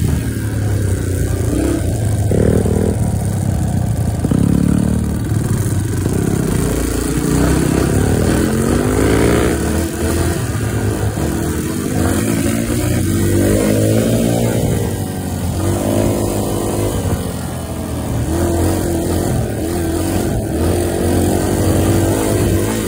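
Dirt bike engine running under way, its pitch climbing and dropping again and again as the throttle is worked and gears change.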